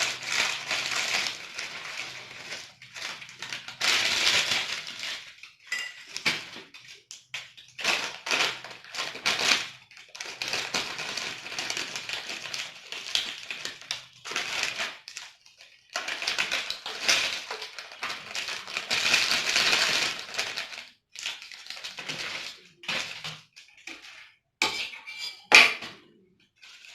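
Potato chips crunching as they are bitten and chewed close to the microphone, in irregular bursts of crisp crackling with short pauses between them and a sharp, loud crunch near the end.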